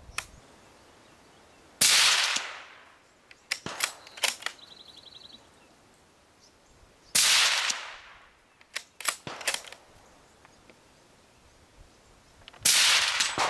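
Bolt-action precision rifle fired three times, about five seconds apart, each shot cracking loud and trailing off as it echoes. Short clicks sound between the shots.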